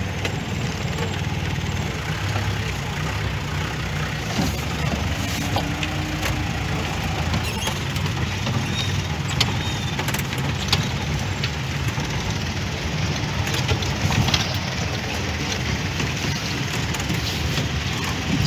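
A 4×4 jeep's engine running steadily, heard from inside the cab, with irregular knocks and rattles as the jeep jolts over a rough, stony dirt track.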